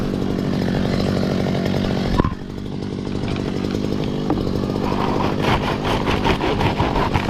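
Two-stroke chainsaw engine running steadily. There is a sharp knock about two seconds in, and the sound grows busier and a little louder from about five seconds on.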